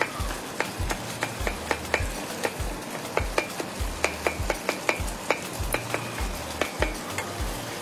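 A spoon stirring tomatoes cooking in a pan, clicking and knocking against the pan many times in quick, uneven succession. A low, regular thudding beat runs underneath, about two a second.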